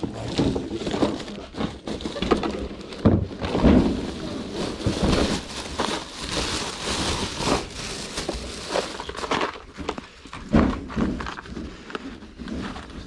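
Objects being handled and rummaged through: irregular rustling and crinkling with scattered knocks and clunks.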